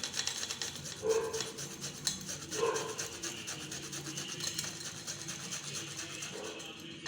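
A piece of fresh ginger being rubbed back and forth against a plate to crush it: a fast, repeated rasping scrape.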